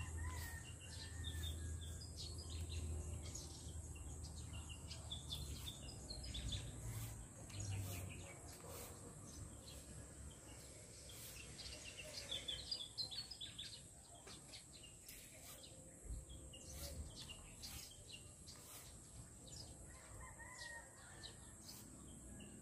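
Small birds chirping now and then, over a steady high hiss, with a low rumble that fades out about eight seconds in.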